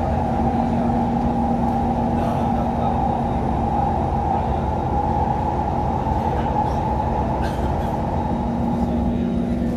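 Inside a Kawasaki Heavy Industries C151 MRT train running along the line: a steady rumble of wheels on rail with a constant low hum.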